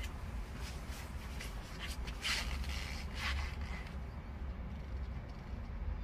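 Wind rumbling steadily on the microphone, with a handful of short scratchy sounds in the first half, the loudest about two and three seconds in.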